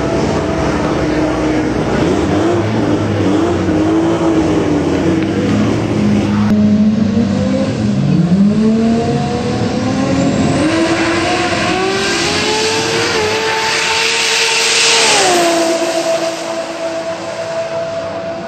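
Toyota 2JZ straight-six drag car with an automatic transmission on a quarter-mile pass. The engine is held and revved on the line. From about eight seconds in, its pitch climbs in steps through the gear shifts at full throttle for about seven seconds, then falls sharply and holds steady as the driver lifts off.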